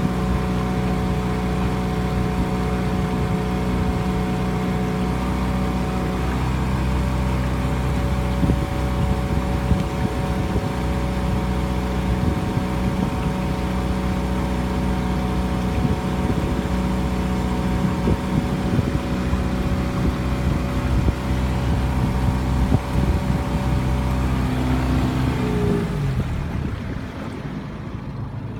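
Small boat's outboard motor running steadily while under way, with water and wind noise. Near the end the engine note falls in pitch and dies away, leaving a quieter hiss of water and wind.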